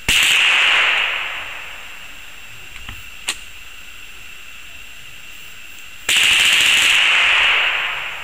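.22 LR rifle fired full-auto style through a BMF Activator trigger crank at about 850 rounds a minute: two fast strings of shots blurring into a rattle, each about a second long, the first at the start and the second about six seconds in. A lone crack comes about three seconds in.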